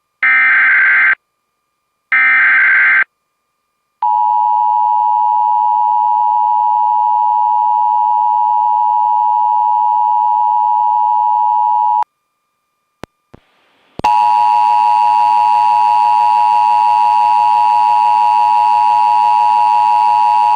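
Emergency Alert System broadcast opening: two short, harsh digital SAME header bursts, then the steady two-tone attention signal held for about eight seconds. After a two-second gap, a second two-tone attention signal starts, this time with hiss under it.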